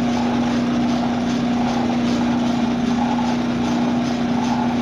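Metal lathe running, its spindle turning a large faceplate, with a steady motor-and-gear hum that does not change.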